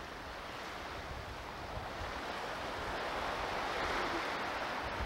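Ocean surf washing steadily, swelling gradually to its loudest about four seconds in.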